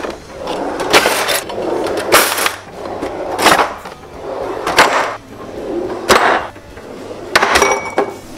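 Kitchen drawers being pulled open and pushed shut one after another: each one a sliding rattle of the runners ending in a sharp knock, about one every second and a bit, some seven times.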